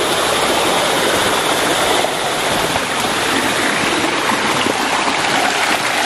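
Rushing water of a mountain stream and waterfall: a steady, loud rush.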